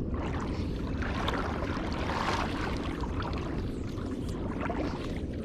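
River water flowing steadily, with faint small splashes and drips.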